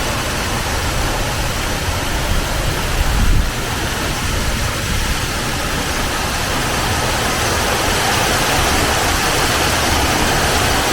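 Waterfall rushing: a loud, steady roar of falling water, with a low rumble beneath it that swells briefly about three seconds in.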